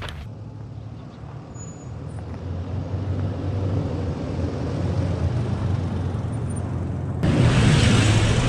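Toyota Fortuner SUV driving toward a camera on the ground, its engine hum growing steadily louder. About seven seconds in there is a sudden loud rush of engine and tyre noise on gravelly sand as it passes directly over the camera.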